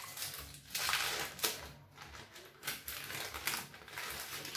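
Baking paper rustling and crinkling in uneven bursts as it is peeled and pulled from the underside of a chocolate sponge cake.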